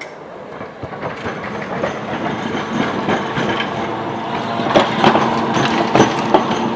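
Blackpool Standard 147, a 1924 double-decker electric tram, rolling close by on its rails. The running noise grows louder over a steady hum, and from about two-thirds in there are several sharp clacks.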